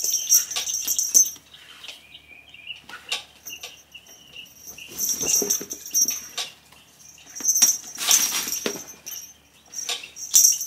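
Irregular bursts of rustling and swishing from a nylon pop-up cat tunnel and a feather wand toy being moved about as a cat plays.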